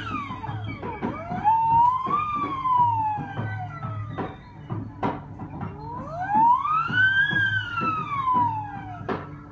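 Free-improvisation music: a siren-like pitched tone glides slowly up and back down twice, each sweep lasting a few seconds, over a steady low hum and scattered clicks and knocks.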